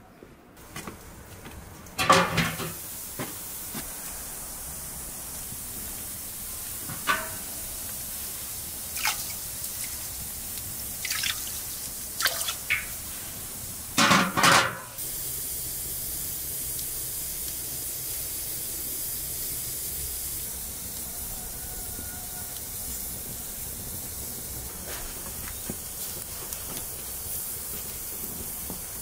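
Cooking sounds at a wood fire: a few short knocks and clinks, the loudest a clatter about fourteen seconds in as the large aluminium pot's lid is handled, over a steady hiss of fire and simmering liquid that grows louder after the lid is lifted.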